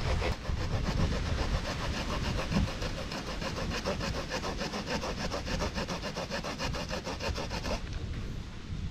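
Small folding saw blade sawing back and forth into a thin wooden stick in quick, even strokes that stop about a second before the end.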